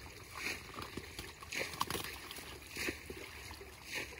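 Water in a shallow ditch splashing and sloshing as people work through it for fish, in about four separate splashes roughly a second apart.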